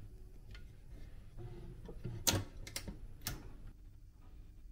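A few short, sharp clicks: a faint one early, then three louder ones close together a little past halfway, the first of those the loudest.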